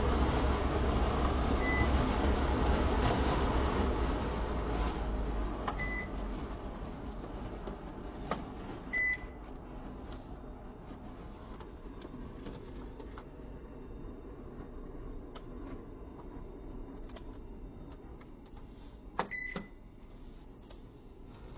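TaoTronics HEPA air purifier's fan running at high speed, then winding down to a much quieter hum over the first several seconds. A few short beeps from its control panel come at intervals, two close together near the end, after which the fan drops quieter still.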